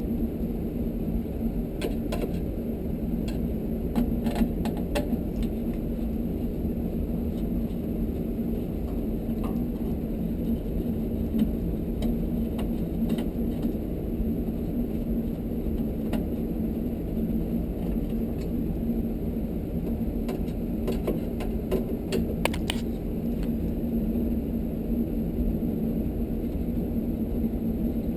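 Scattered light metallic clicks and clinks of hand tools and screws as the tankless water heater's burner housing is taken apart, over a steady low background hum.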